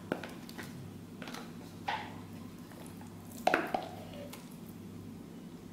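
Thick ground moong dal paste poured and scraped from a jar into a steel pan, wet plops with a few light knocks of utensils. The loudest is a clink with a short ring about three and a half seconds in.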